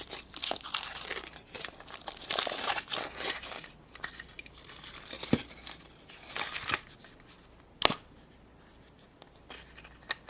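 Foil wrapper of a Kinder Surprise chocolate egg being torn and crumpled off, a dense crinkling that thins to scattered rustles about four seconds in. A single sharp click comes near the end.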